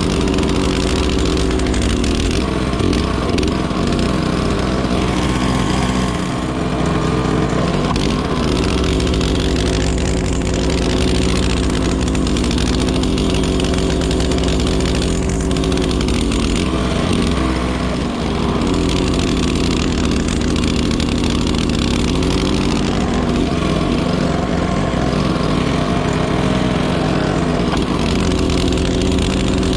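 Honda snowblower's engine running steadily under load as it cuts through deep snow and throws it from the chute. Its note sags briefly several times as the load comes on.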